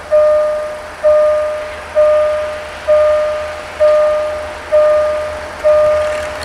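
Railway level-crossing warning bell ringing steadily, about one ding a second. Each strike starts sharply and fades away before the next, warning of an approaching train.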